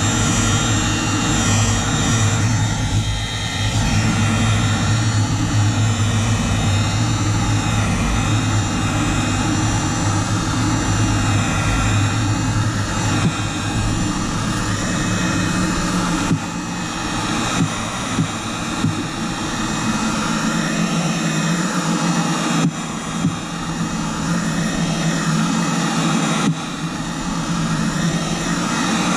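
Electric heat gun running on its highest setting, its fan blowing with a steady whir and a low motor hum that changes pitch about halfway through.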